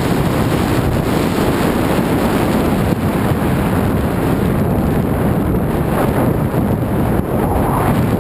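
Steady, loud wind rushing over a camera microphone carried by a skier moving fast down a groomed run.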